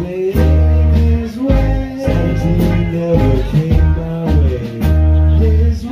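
Live band playing an instrumental passage of a blues-rock song: electric guitar over long sustained bass notes, with keyboard and regular cymbal hits.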